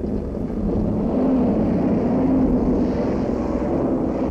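Engine of Preston Tucker's anti-aircraft armoured car running under load as it climbs a dirt slope: a steady rumbling drone whose hum edges slightly higher, growing louder about a second in, then cutting off abruptly at the end.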